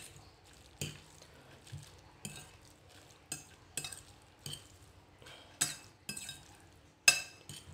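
Metal fork stirring noodles on a ceramic plate, clinking and scraping against the plate in irregular sharp clicks, about one or two a second, the loudest near the end.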